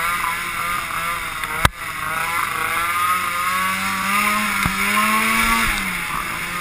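Snowmobile engine running at speed, its pitch wavering, climbing about four seconds in and dropping back near the end. A single sharp knock just under two seconds in.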